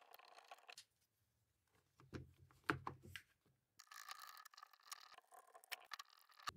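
Faint scraping and clicking of a screwdriver driving screws into the plastic recoil starter housing of an Echo CS-3000 chainsaw, with a few sharp knocks about two to three seconds in as the saw and housing are handled.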